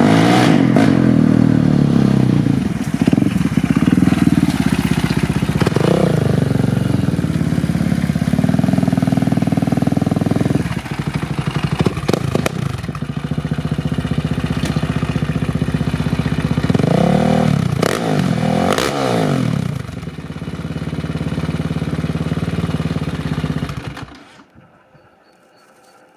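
Polaris Outlaw 525's KTM single-cylinder four-stroke engine running through a Big Gun EVO R slip-on exhaust. It sits at low revs with quick throttle blips, one about a quarter of the way in and two close together about two-thirds through. It is shut off near the end.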